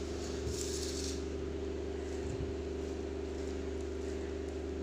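Steady hum holding several level tones, with a brief soft rustle about half a second in.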